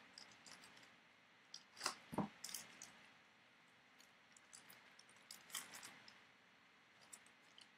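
Faint crinkling and rustling of a foil 2017 Elite football card pack and cards being handled as the pack is opened, in short crackly bursts about two seconds in and again around five and a half seconds.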